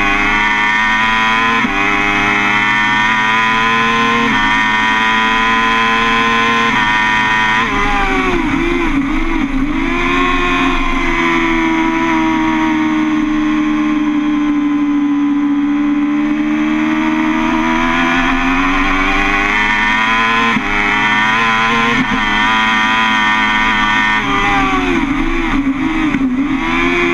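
BMW S 1000 RR inline-four engine running hard at race pace. Its pitch climbs in steps, dips and wavers about eight seconds in, holds a long smooth pull through the middle, then climbs again and wavers once more near the end.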